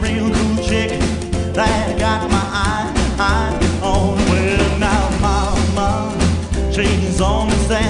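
Rockabilly band music with a steady, pulsing bass line.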